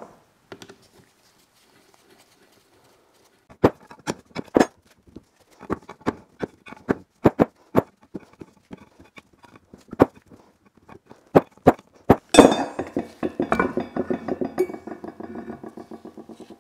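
Metal parts of an electric motor knocked and handled while it is taken apart, with a series of separate sharp clinks and knocks. About twelve seconds in comes a loud metallic clank, then a ringing rattle that fades away.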